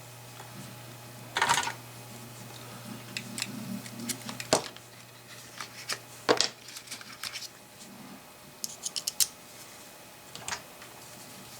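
Irregular clicks and taps of small tools and parts being handled: a short scrape about a second and a half in, sharp single clicks around four and a half and six seconds, and a quick run of light clicks near nine seconds.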